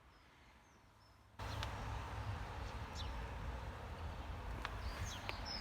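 Near silence for over a second, then steady outdoor background noise cuts in, with a few faint bird chirps near the end.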